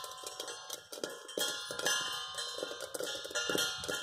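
Sorghum grains popping inside a steel kadai covered with a steel plate: a rapid, irregular clatter of pops striking the metal, the pan's 'thada thada' sound of popping in full swing, over background music.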